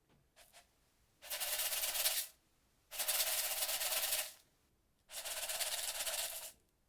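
Rice shaken quickly side to side in a handled container, a Foley imitation of a rattlesnake's rattle: three separate bursts of fast, dry rattling, each a second or so long.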